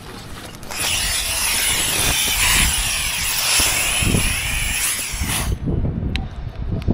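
Hand-held hose spray nozzle spraying water in a steady hiss, turned on about a second in and shut off about five seconds in: a check that water is coming through the hose before the rope descent.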